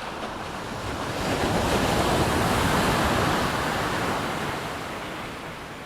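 Ocean surf: a wave breaking and washing up the beach. It swells over the first two seconds and then slowly fades.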